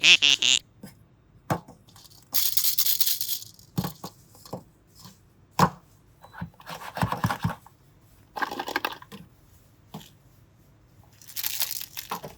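Packaging being torn open and handled: several bursts of tearing and crinkling, with small clicks and knocks between them.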